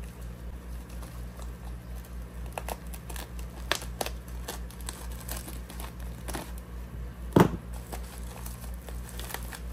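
Foil-lined insulated bubble mailer crinkling and tearing as it is slit with a razor knife and pulled open by hand: scattered crackles, with one sharper snap about seven seconds in, over a steady low hum.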